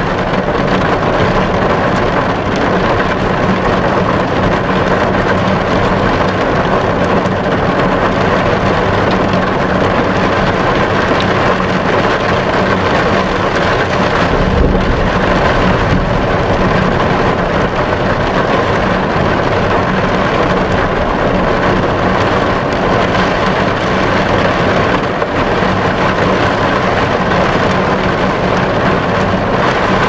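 Heavy rain falling on a car's windscreen, heard from inside the car: a dense, steady patter with a faint low hum beneath it. A brief low thump comes about halfway through.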